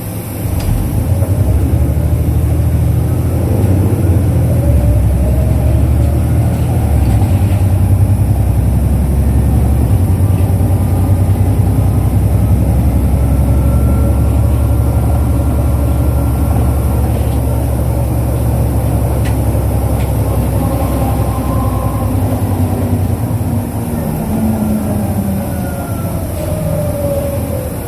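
Isuzu Erga city bus's diesel engine running, heard inside the passenger cabin: a strong, steady low drone that eases off in the last few seconds, where a whine falls in pitch as the bus slows.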